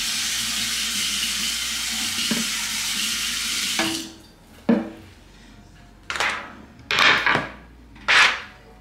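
Kitchen tap running steadily for about four seconds, then shut off, followed by a few short clatters and scrapes of dishes and utensils.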